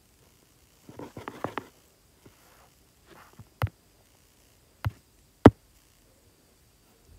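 Fingertip taps on a tablet touchscreen: a quick run of light taps about a second in, then three single sharper taps, the last the loudest.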